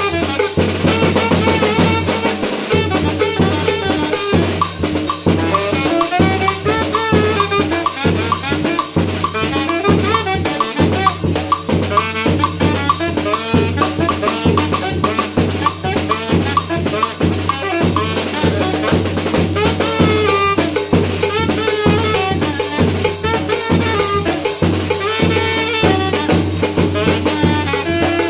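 Live band music: a saxophone plays the melody over a steady beat of snare drum, cowbell and a large bass drum (tambora).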